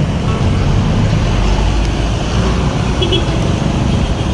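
Steady road traffic noise with vehicle engines running.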